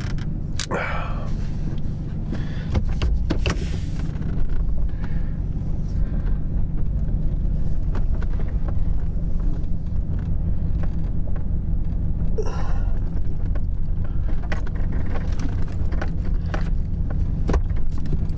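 Truck engine running, heard from inside the cab as a steady low hum, with a few short clicks and rustles of handling.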